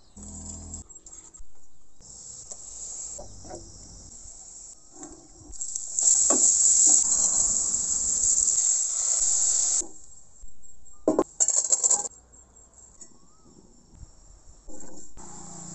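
Washed raw rice being tipped into a pot, a loud hiss lasting about four seconds, among short clinks and scrapes of a spoon against bowl and pot.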